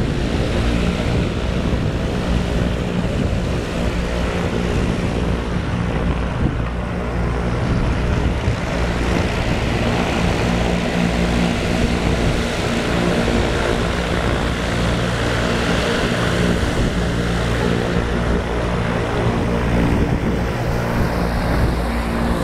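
Propeller airplane engine running steadily nearby, a continuous even drone with no change in speed.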